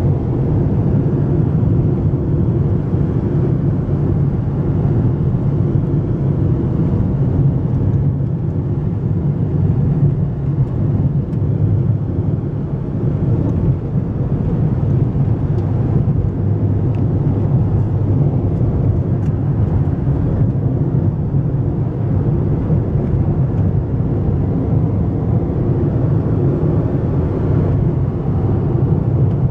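Car driving on an asphalt road, heard from inside the cabin: steady, low engine and tyre noise.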